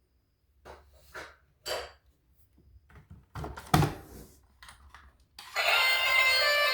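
Scattered knocks and rustles of objects being handled, the loudest a sharp knock near the middle. Then music, busy with many notes, starts suddenly about five and a half seconds in and is louder than everything before it.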